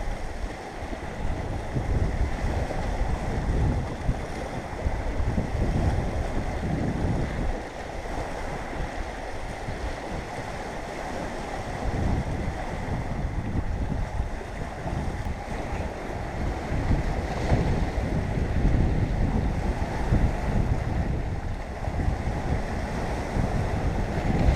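Sea waves washing on the shore, with wind buffeting the microphone in gusts that swell and ease every few seconds.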